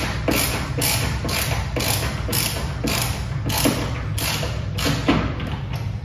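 Milwaukee multi-bit hand screwdriver ratcheting as a screw is driven into a door strike plate: a regular run of clicking strokes, about two a second, which stops near the end.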